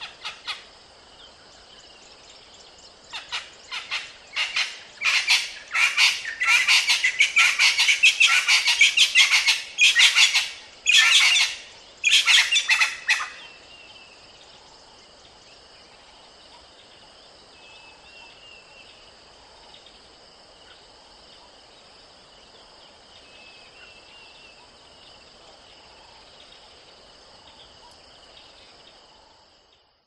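Francolin calling: a loud series of rapidly repeated calls that builds and speeds up for about ten seconds, then stops abruptly. Afterwards only a faint steady high hum and a few faint chirps remain.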